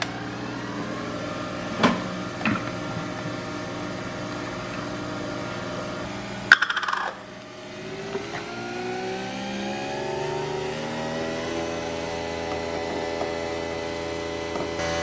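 Nespresso Vertuo coffee machine brewing: a steady motor hum with a couple of clicks, a loud clatter about six and a half seconds in, then a motor hum that rises in pitch over a few seconds and holds steady.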